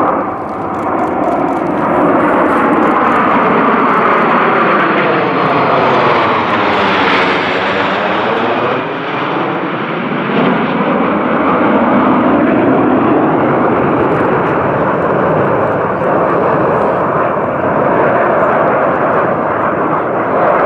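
Formation of Aermacchi MB-339 jet trainers flying past, their Rolls-Royce Viper turbojets giving a loud, continuous rushing jet noise. A swirling, phasing sweep falls and then rises again about seven seconds in as the formation passes overhead.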